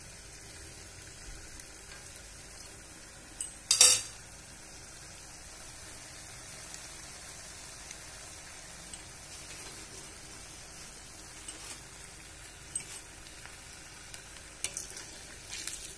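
Bondas deep-frying in a kadai of hot oil, a steady sizzle while they are stirred and turned with a metal spoon. A sharp metal knock about four seconds in, and a few lighter taps of the spoon against the pan near the end.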